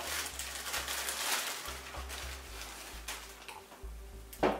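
A clear plastic bag crinkling and rustling in irregular small crackles as a handful of fresh cilantro is pulled out of it, with one short, louder burst near the end.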